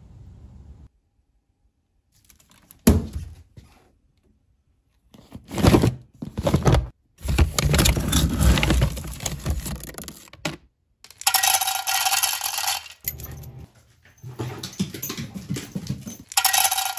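Dry dog kibble being handled in a plastic food bag: crinkling plastic and rattling pellets. Twice, later on, there is a brighter metallic jangling and clinking for a second or two.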